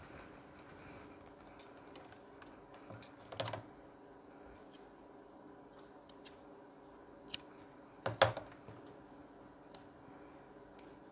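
A few sharp clicks and snips from scissors cutting thread at a stopped sewing machine, the two loudest about three and a half and eight seconds in, over a faint steady hum.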